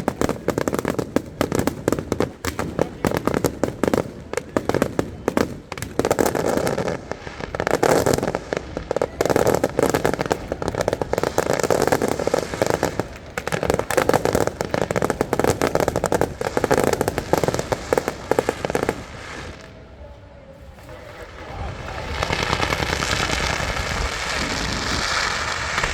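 Aerial fireworks show: a rapid, dense barrage of bursts and crackles that thins out about 19 seconds in. After a short lull, a steadier, hissing din builds toward the end.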